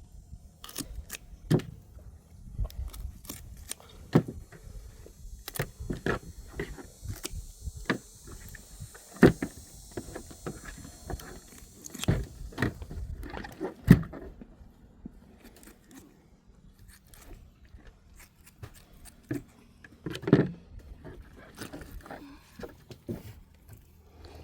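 Irregular knocks, clatters and scrapes of things being handled, with a steady hiss from about three seconds in until about thirteen seconds in.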